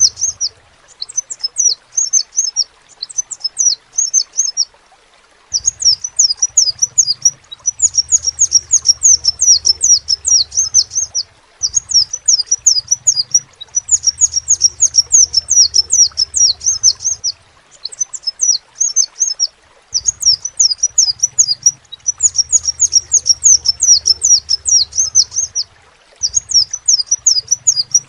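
Crimson sunbird (sepah raja) singing: rapid runs of high, thin, downward-slurred chirps in phrases of a few seconds, separated by short pauses.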